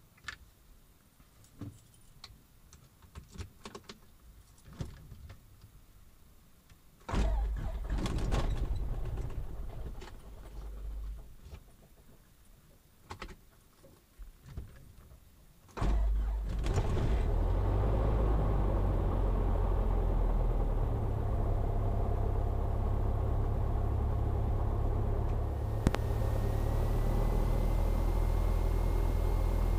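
Scattered clicks, then a low rumble for a few seconds, then about sixteen seconds in a Cessna 172's piston engine starts and settles into a steady idle. Near the end a faint high whine rises and holds.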